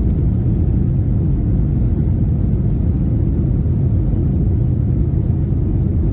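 Steady low rumble of a Boeing airliner's cabin in the climb after takeoff: jet engines and airflow heard from a window seat, even and unbroken.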